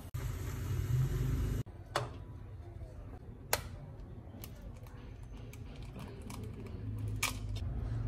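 Water boiling in a frying pan of instant noodles for about the first second and a half, then eggs being cracked and beaten with chopsticks in a small ceramic bowl: a few sharp taps and light, quick clicking.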